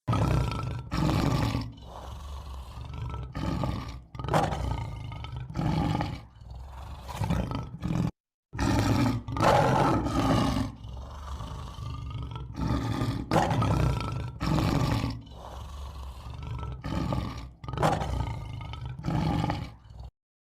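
A large wild animal roaring over and over: a long run of deep, loud calls, each about a second or less, with one short silent break about eight seconds in, cutting off just before the end.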